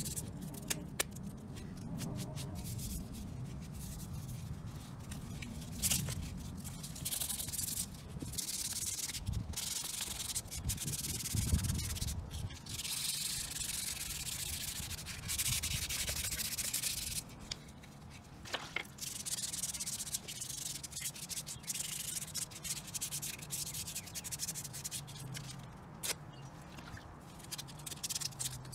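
Hand wet sanding of a carbon fiber shift surround: sandpaper rubbing back and forth over the wet resin surface in runs of hissing strokes with short pauses, quieter in the second half.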